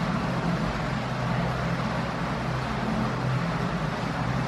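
Steady low mechanical hum under an even hiss.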